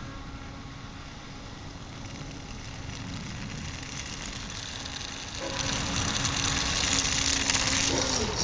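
Small electric motor and propeller of a homemade fan-driven toy car whirring steadily, growing louder and hissier a little past halfway through.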